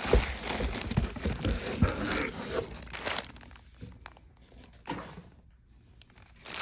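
Packaging crinkling and rustling as it is handled and opened. It is dense for the first few seconds, then thins out to a few scattered rustles and clicks.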